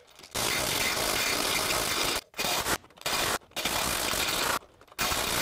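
Makita cordless impact wrench hammering on a lug nut in five runs with short pauses between, the first about two seconds long. It is driving the nut in the tightening direction through an oversized socket, so the socket slips and rounds off the nut's corners.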